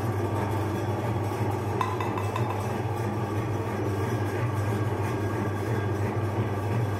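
Electric meat grinder's motor running with a steady low hum.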